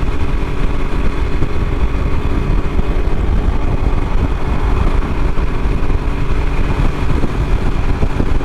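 Three-wheeled motorcycle's engine running steadily under way, a heavy low rumble beneath its steady hum.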